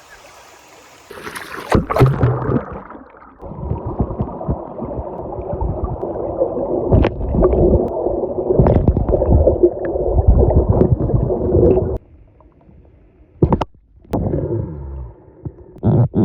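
Muffled sloshing and gurgling of water with many knocks and bumps, cutting off suddenly about twelve seconds in, followed by a few short bursts.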